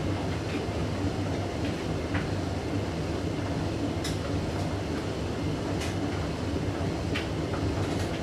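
Hoover DYN9144D3X washing machine drum turning with a steady motor hum and a sharp knock every second or two, as the machine tries to balance an out-of-balance blanket load before its final spin.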